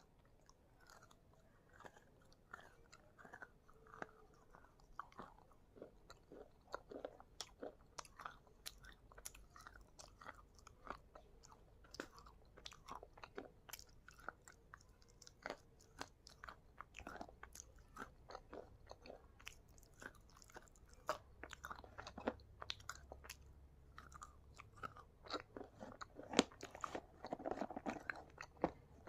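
Slate pencils being bitten and chewed: a steady run of sharp, dry crunches and crackles, coming thickest near the end.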